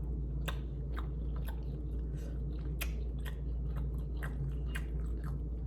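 A person chewing food close to the microphone, the mouth making short, irregular clicks about twice a second.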